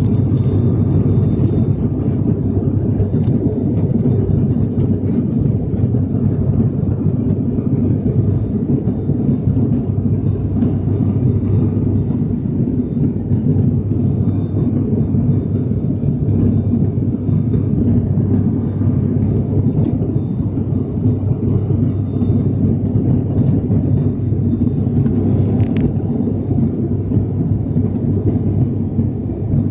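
Cabin noise of an ATR 72-600 turboprop in flight: a steady low drone from its Pratt & Whitney PW127 engines and propellers, heard from inside the cabin, with a faint high steady whine above it.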